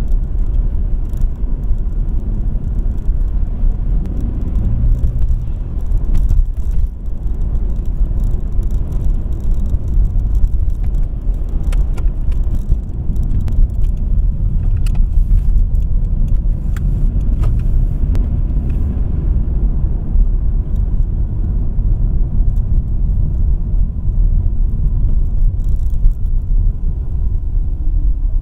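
Steady low rumble of a car's road and engine noise, heard from inside the cabin while driving, with a brief dip about six seconds in and a few light ticks in the middle.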